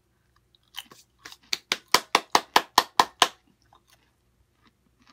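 A person chewing a crunchy potato chip with the mouth: a quick, even run of about a dozen crisp crunches over two and a half seconds, starting about a second in.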